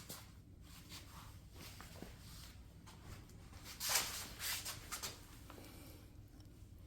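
Faint, irregular rubbing and scuffing handling noises, with a louder cluster of rustles about four seconds in.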